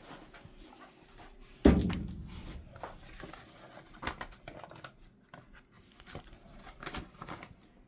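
One loud, heavy thump about a second and a half in, its low rumble dying away over about a second, followed by scattered faint clicks, knocks and rustling.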